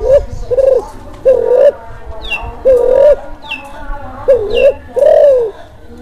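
Spotted dove (Kelantan-line tekukur) in breeding condition, cooing repeatedly: about six short coos at uneven intervals, each rising then falling in pitch. A few short high chirps sound between them.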